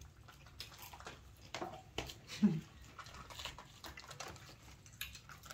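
Small crinkles and clicks of fingers working at the peel-off lid of a small plastic buffalo-sauce cup. About two and a half seconds in there is a brief, low, falling voice-like sound.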